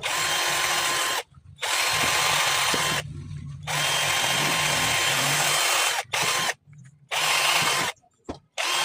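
Electric drill running in about six short bursts, its motor speeding up at the start of each and winding down at the end, drilling holes in plastic.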